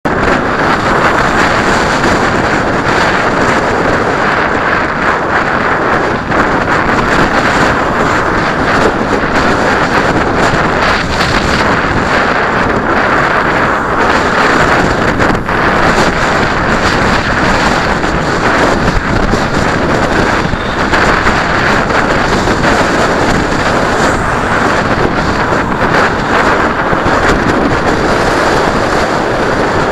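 Steady, loud wind rush over the microphone of a camera on a moving bicycle, with road noise mixed in.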